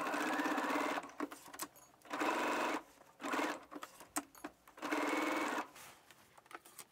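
Computerized sewing machine stitching a seam through fabric in short runs, starting and stopping about four times, with small clicks in the pauses between runs.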